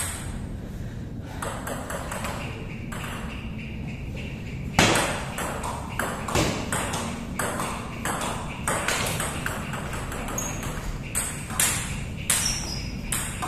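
Table tennis ball clicking off the paddles and the table: a few scattered bounces at first, then from about five seconds in a rally of quick, sharp clicks, several a second.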